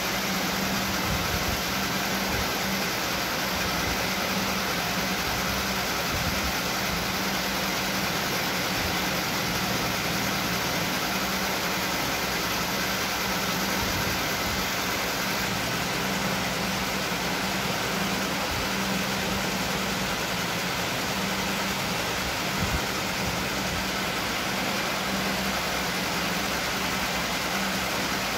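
Aquarium filter and air stones running: a steady hum under constant bubbling and hissing of air in the water.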